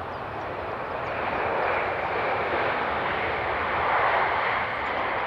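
Jet airliner engine noise: a steady rushing sound that swells slightly partway through.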